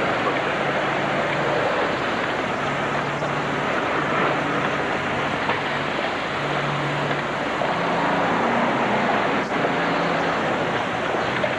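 Steady city street traffic noise: a continuous hiss with the low hum of passing car engines coming and going.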